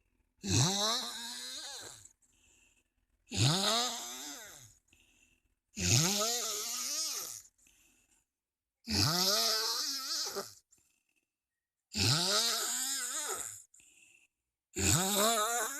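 A man snoring heavily in a steady rhythm: six snores about three seconds apart, each about a second and a half long, with near silence between them.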